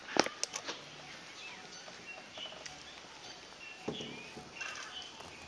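A quick run of four or five sharp clicks in the first second, the first the loudest, and another click near four seconds, over faint, short bird chirps.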